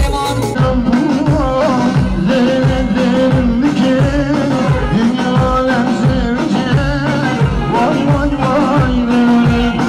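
Upbeat Middle Eastern-style wedding dance music: a singing voice and melody line over a steady drum beat.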